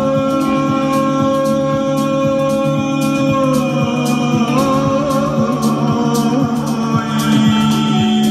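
Live band music: long held melody notes and singing over a steady beat of about two strokes a second.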